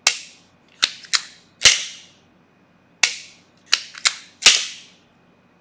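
American Rifle Company Coup de Grace bolt action worked hard by hand: about eight sharp metallic clacks in two rounds, each round ending in a heavier clack as the bolt is slammed home. The bolt is run as hard as possible to check that the light 6-ounce trigger does not slam-fire.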